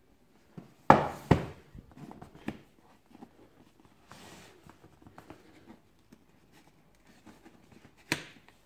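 Cardboard box handled on a hard floor: two loud thumps about a second in as it is set down, then light tapping, rustling and scraping of cardboard, and a sharp knock near the end as the lid is gripped.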